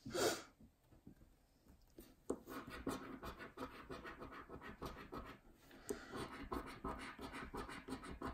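A pound coin scraping the silver latex off a paper scratchcard on a wooden table, in quick, dense strokes that start about two seconds in. A short breathy puff comes at the very start.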